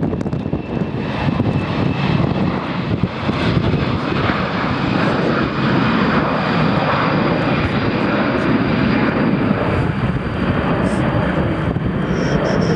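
Boeing 737's twin jet engines at takeoff thrust as the airliner accelerates down the runway: a loud, steady engine noise with a deep rumble that builds slightly over the first few seconds.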